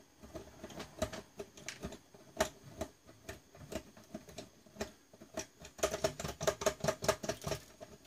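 Light clicking and tapping of small metal tools and hardware being handled, with a quick run of clicks about six seconds in.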